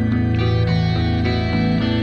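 Background music with held notes at a steady level.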